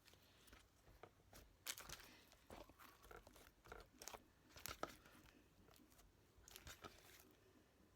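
Slime being mixed and squished by hand, butter slime worked into another slime: faint, irregular sticky crackles and soft pops.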